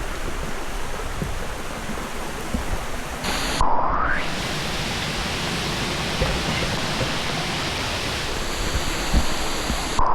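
Steady loud rushing noise, broken about four seconds in and again at the end by a short rising swish.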